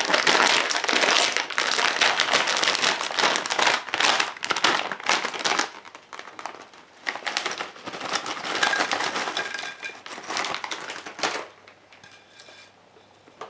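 Metallized plastic potato chip bag crinkling loudly as it is torn open and handled, a dense crackle for the first five or six seconds, then in shorter bursts until it stops about eleven seconds in.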